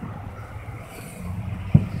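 A single low boom of a distant firework burst near the end, over a steady low engine hum.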